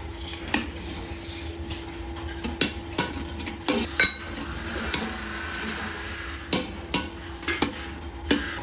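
Irregular metallic clinks and knocks as aluminum pieces are worked and handled, some strikes with a brief high ring, over a steady low hum.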